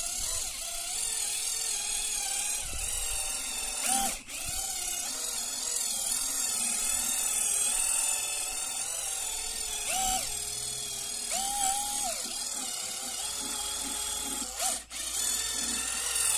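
Electric buffer running steadily, its motor whining as it spreads plastic polish over a plastic headlight lens. The sound dips briefly twice.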